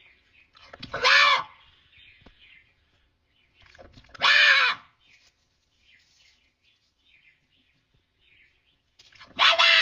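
An animal calling loudly three times, each call about half a second long and arching in pitch, with faint high chirping of small birds in between.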